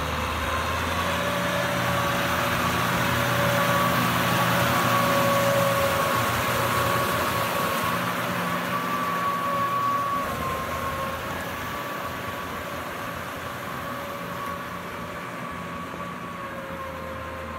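Kubota M6040SU tractor's diesel engine running under load as it pulls a rotary tiller through a flooded rice paddy, with a steady whine over the engine noise. It grows louder over the first few seconds, then fades as the tractor moves away.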